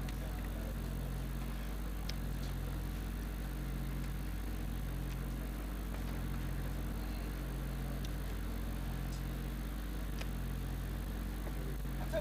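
Steady low mechanical hum that pulses gently in strength, with a few faint clicks over it.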